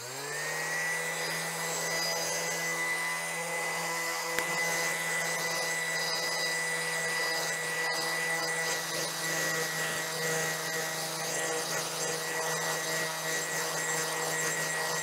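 Handheld random orbital sander with a buffing pad, spinning up in the first second and then running steadily with a high whine as it buffs excess oil finish off a wooden board.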